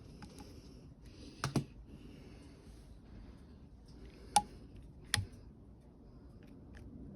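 Small tools and metal parts being handled at a workbench while a replacement pressure sensor is soldered into a DSG7 gearbox mechatronic unit. There are three sharp clicks or taps, one about a second and a half in and two close together near five seconds, with faint scratching between them.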